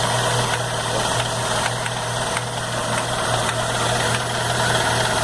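MG 1300's four-cylinder engine idling steadily with a rattle, which the owner traced to the idler gear.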